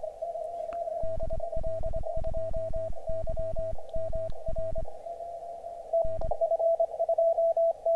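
Morse code (CW) from an Elecraft K3 transceiver: a steady tone keyed on and off, the operator's sidetone as he sends his call sign again and again into a pileup calling a DX station on the 17 m band, with the receiver heard between his characters. The keying weakens briefly about five seconds in, then comes back stronger and cleaner.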